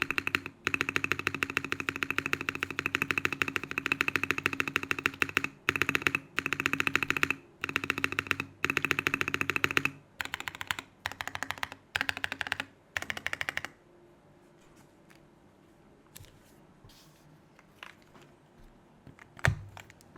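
Rapid typing on a Mode Eighty mechanical keyboard with lubed Holy Panda tactile switches and an aluminium plate, in several fast bursts of keystrokes with short pauses between them. The typing stops about two-thirds of the way through, leaving a few faint clicks and a single low thump near the end.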